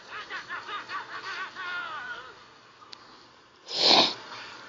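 A voice processed by a voice changer app laughing in quick, wavering bursts for about two seconds. A short, loud burst of noise follows near the end.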